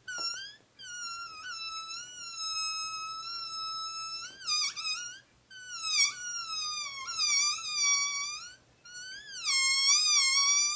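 Air let out through the stretched neck of an inflated rubber balloon, making a high, wavering squeal that imitates a mosquito's whine. It stops and starts again a few times, its pitch wobbling and dipping, and it climbs briefly near the end.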